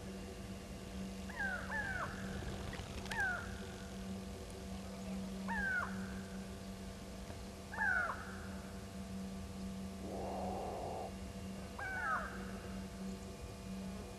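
An unidentified animal's short call sliding down in pitch, repeated every one to two seconds and sometimes given twice in quick succession, over a steady low electrical hum.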